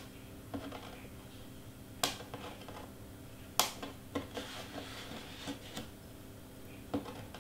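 Hands sorting through small cut cardstock pieces: three sharp taps or clicks, the first right at the start and then about a second and a half apart, followed by soft paper rustling and light ticks, over a faint steady room hum.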